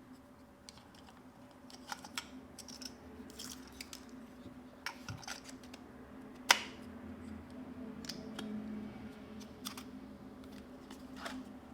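Small plastic clicks and handling noises from a GoPro Hero 12 action camera as its battery is being fitted, with one sharp snap about six and a half seconds in, over a faint steady hum.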